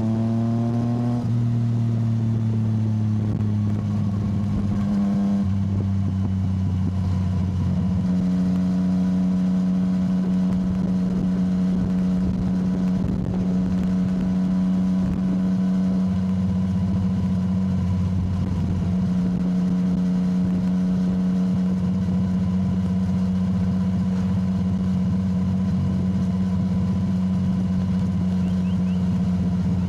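Yamaha motorcycle engine running at a steady cruising speed, its pitch rising a little at the start and then holding nearly constant.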